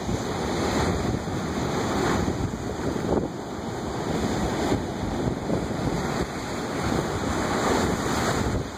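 Ocean surf breaking and washing over shoreline rocks: a continuous rush of water that swells and eases as each wave comes in. Wind buffets the microphone, adding a low rumble.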